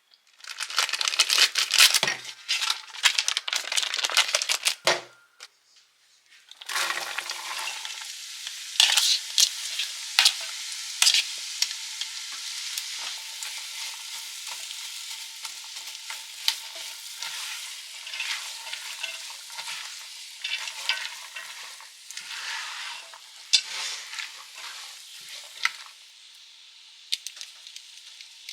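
Food frying in a pan: a steady sizzle with many sharp crackling pops. It breaks off briefly about five seconds in, then runs on and drops lower near the end.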